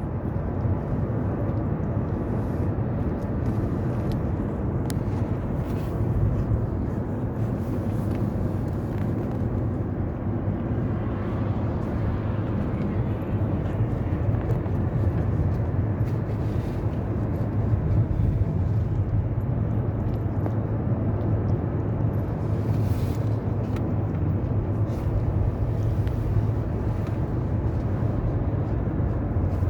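Steady low rumbling noise with a few faint clicks scattered through it.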